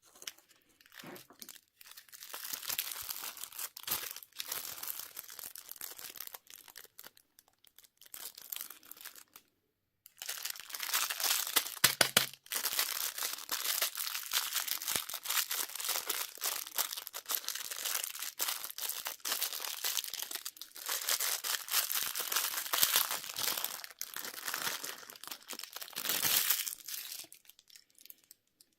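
Candy wrapper being crinkled and torn open in close crackling handling, with a short pause partway through and one sharp click soon after it.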